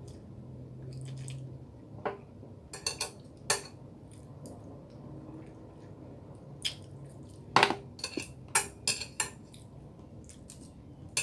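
Cutlery clinking against a plate while eating: a dozen or so short, scattered clinks, with a quick run of them in the middle.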